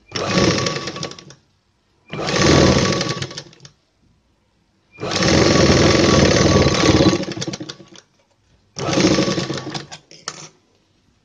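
Sewing machine stitching through fabric in four short runs of rapid needle strokes, each one to three seconds long, with brief pauses between them as the cloth is repositioned.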